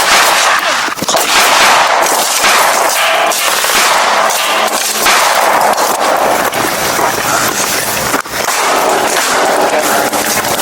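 Heavy, sustained gunfire, shots coming so fast they run together, with a brief lull about eight seconds in.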